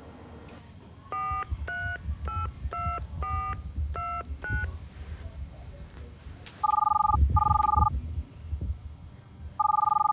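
A seven-digit number dialled on a touch-tone telephone: seven short two-tone beeps. Then the line rings with a double burst of ringing tone, and the next double ring starts near the end.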